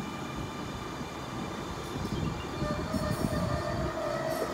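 Sydney Trains M set (Millennium train) double-deck electric train pulling into a station and slowing, with a steady rumble of wheels on track. A steady whine comes in about halfway through, and a few light clicks follow near the end.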